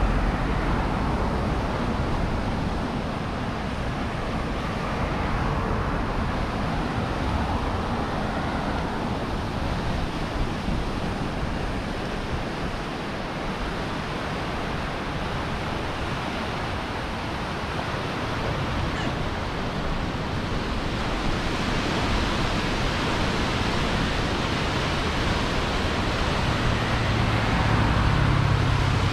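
Outdoor street ambience: a steady rush of noise with no clear single event, swelling a little past the middle, with a low hum strengthening near the end.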